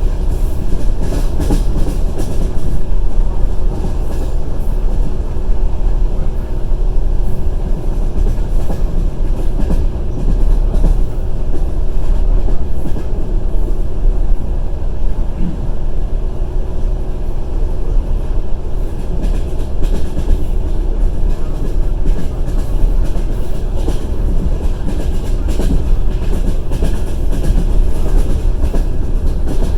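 Passenger train running along the track, heard from inside the carriage: a steady low rumble of wheels on rails, with clusters of clacks over the rail joints a few times.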